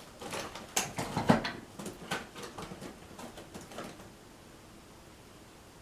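Knocks, clicks and rustling of slime-making supplies (bottles and containers) being picked up and set down on a table, loudest about a second in and dying away after about four seconds.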